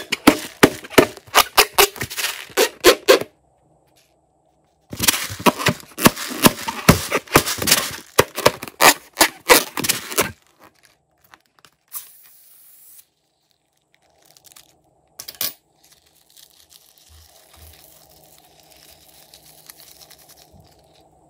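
Slime being squished and stretched by hand, giving runs of rapid sharp clicks and pops several times a second, with a pause of about two seconds between them; after about ten seconds only scattered soft ticks and one short crack remain.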